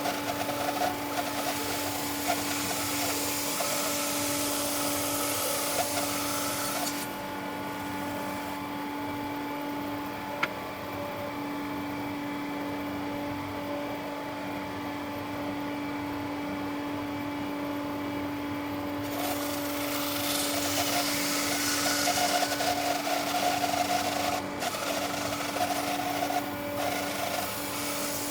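Bandsaw running with a steady motor hum while its blade cuts lengthwise through a fruit-tree log. The cutting noise drops away for about twelve seconds in the middle, leaving mostly the hum, then comes back.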